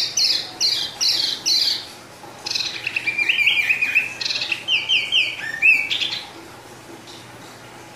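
Caged wambi songbird singing: a quick run of repeated high falling notes, then a more varied twittering phrase that stops about six seconds in.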